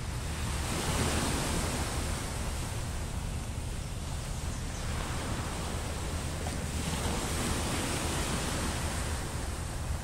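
Choppy sea surf breaking and washing ashore, swelling and easing every few seconds, with wind rumbling on the microphone.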